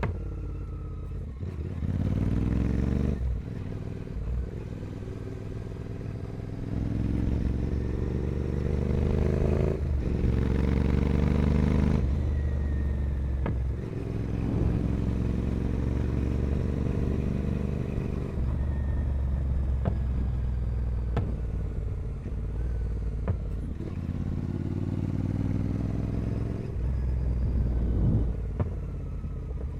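Royal Enfield Continental GT 650 parallel-twin engine through a carbon 2-into-1 racing exhaust, ridden hard. It pulls up in pitch several times, with a sharp drop at each gear change, and eases off in between.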